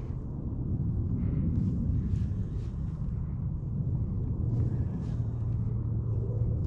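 Low, steady rumble of wind on the microphone, with faint light ticks in short runs about half a second apart.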